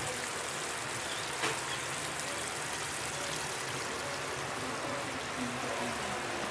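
Steady watery hiss of a lidded aluminium pot of gillbaka fish curry simmering on a stove, with one faint click about one and a half seconds in.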